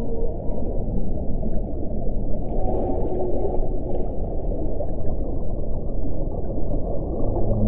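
Underwater recording of whale calls: a dense steady rush of sea noise with a few faint moaning tones, then a stronger low moan that begins near the end.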